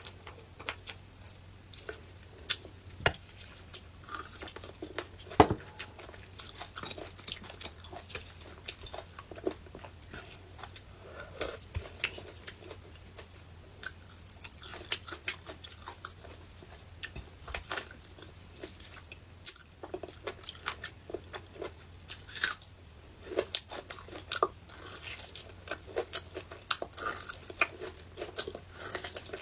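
Close-up chewing of braised beef bone marrow: irregular small mouth clicks and smacks, with a couple of louder, sharper clicks, one about five seconds in and one about two-thirds of the way through.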